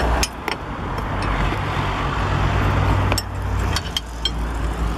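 Handling noise from a handheld camera being swung around: several sharp clicks and knocks over a steady low rumble.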